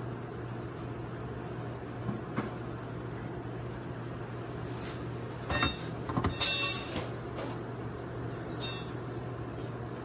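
Steady low hum of a honey bee colony in the air around an exposed hive, with a few small clicks and a cluster of crackling, knocking handling noises midway as the comb is broken off by hand.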